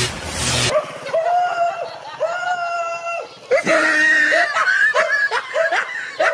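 High-pitched laughing and shrieking: a few long held cries, then quicker, choppier bursts from about three and a half seconds in.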